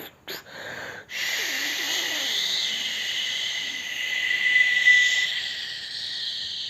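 Man imitating a train with his mouth: a long, steady hiss with a whistling tone running through it, swelling around the middle, after a few short puffs.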